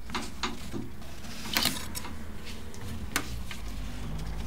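Hands working a black strap off a model plane's propeller and spinner: light clicks and rustles, a brief louder scrape about one and a half seconds in and a sharp click about three seconds in.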